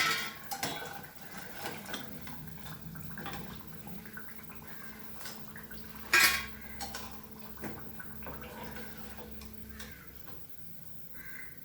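Metal kitchen utensils clinking and scraping: a spoon tapping against a frying pan and a serving dish as fried fritters are lifted out of the oil. The loudest clank comes about six seconds in, among scattered lighter clicks.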